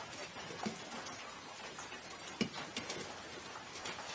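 A scattered handful of light clicks and taps as small carburetor parts knock against a metal can of cleaning dip while they are fished out.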